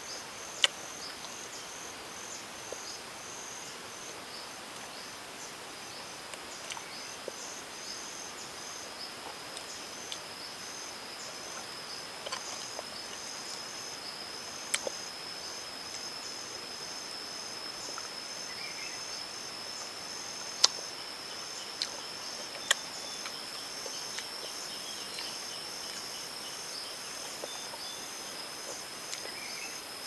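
Forest insects calling steadily: a continuous high buzzing tone with a faster pulsed chirping above it. A few sharp clicks stand out over it, the loudest about two-thirds of the way through.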